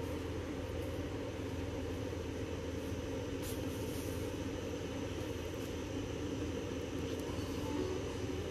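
Steady low hum and rush of a room air purifier's fan running, with a faint rustle or two of glossy photo prints being handled.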